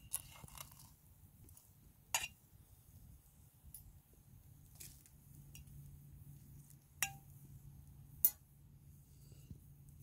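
A handful of short, sharp clicks and knocks a second or more apart, the loudest a little past eight seconds in, over a faint steady low hum.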